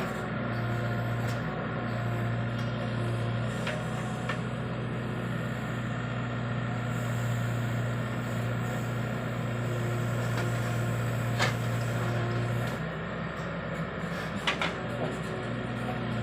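CASE 770 backhoe loader's four-cylinder turbocharged diesel running with a steady low hum, which dips for a few seconds near the end. A few short, sharp knocks come through.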